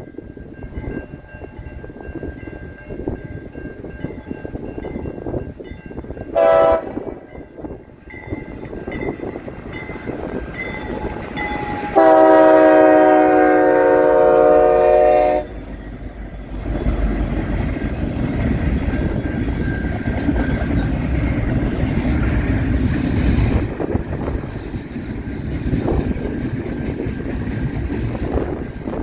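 The K5H five-chime air horn of BC Rail GE C40-8M cowl locomotive 4609 sounds a short toot about six seconds in, then a long blast about twelve seconds in lasting some three seconds. After it, the diesel locomotives and then double-stack intermodal cars roll past with a loud steady rumble and wheel clatter.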